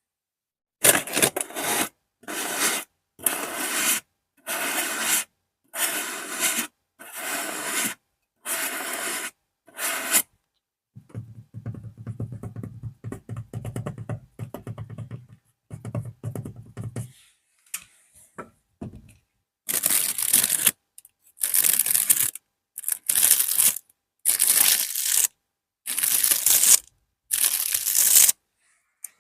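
Close-up ASMR scratching: first about nine even scratching strokes, roughly one a second, then a few seconds of low, dense crackling rubbing. It ends with six longer, brighter scratches spaced a little more widely.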